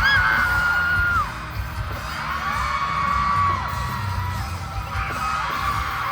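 Loud live pop concert music in a stadium, dominated by a heavy booming bass, with long high-pitched screams from the crowd held over it.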